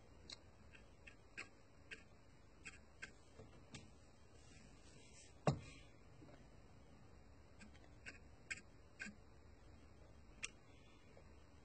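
Faint, irregular light clicks of a paintbrush tapping on small plastic model wheels mounted on pins, with one louder knock about halfway through.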